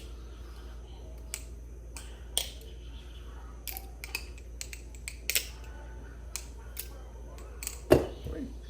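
Balisong (butterfly knife), a clone of a Squid Industries model, being flipped: irregular sharp metal clicks and clacks as the handles swing round and strike, with one louder knock near the end.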